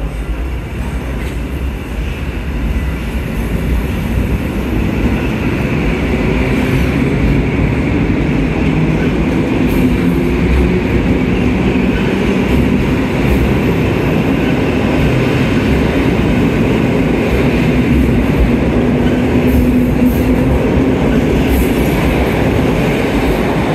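Electric multiple unit pulling out of an underground station platform, its motors and wheels growing louder over the first several seconds as it gathers speed, then a steady low hum and rumble as the carriages roll past, echoing off the enclosed platform.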